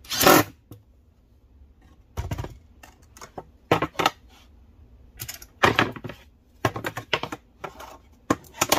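A brief burst from a Ridgid cordless driver at the start, then a scatter of sharp clicks and knocks from the tool being set down and metal drawer-slide parts being handled against plywood.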